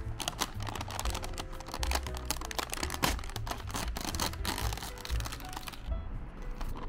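Background music with a low bass line, over the crinkling and tearing of a foil snack pouch being pulled open by hand; the rustling thins out about six seconds in.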